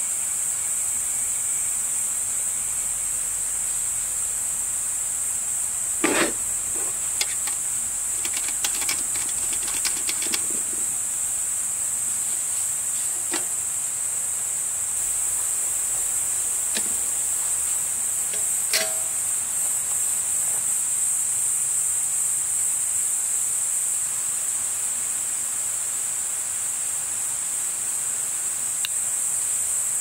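Crickets chirring in a steady, high-pitched chorus, with a run of sharp clicks and light knocks about six seconds in and a few single knocks later.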